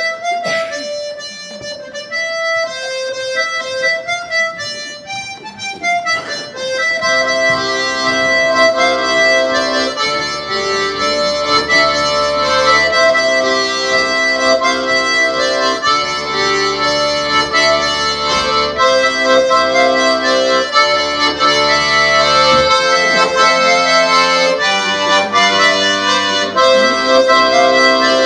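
Accordion playing a Breton dance tune: the melody alone for the first six seconds or so, then bass notes and chords join in and it carries on at full strength.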